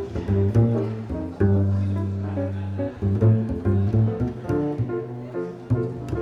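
Jazz played on piano and double bass: a walking line of plucked bass notes under piano chords, with one long held low bass note in the second second.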